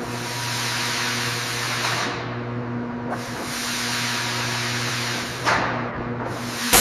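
Automated sheep-shearing machine running with a steady motor hum, overlaid by a hiss that swells and fades twice. A short, loud sharp burst comes near the end.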